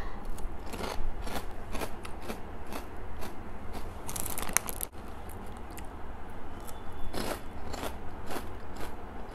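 Doritos tortilla chips crunching as they are bitten and chewed, with sharp crisp crunches coming about two a second.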